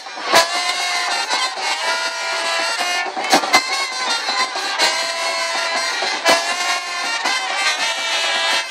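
School band playing live: trumpets holding long notes over occasional bass drum strokes.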